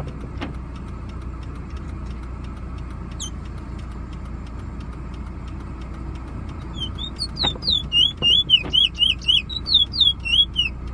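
Bullfinch singing a fast run of clear, down-slurred whistled notes, starting about seven seconds in and lasting about four seconds, after a single short chirp about three seconds in. A car engine runs steadily underneath.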